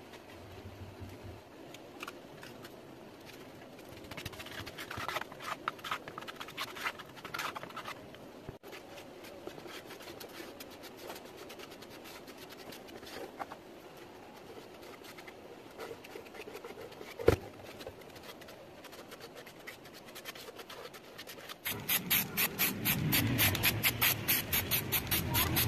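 A spatula and putty knife scraping as body filler is mixed on a board and spread along a PVC boat hull, with one sharp knock a little past halfway. Near the end a much louder, rapidly pulsing hiss takes over as the hull is spray-painted.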